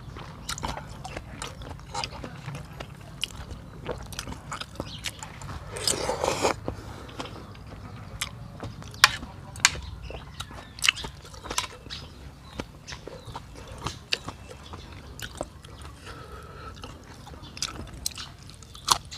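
A person eating beef noodle soup close to the microphone: wet chewing and mouth clicks, with a longer, louder noisy sound about six seconds in that fits slurping noodles and broth. A steady low hum runs underneath.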